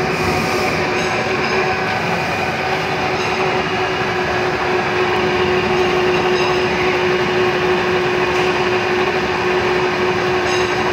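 Vertical milling machine running, its end mill cutting a round metal workpiece held in a chuck on a dividing head: a steady hum with the rough, continuous noise of the cut.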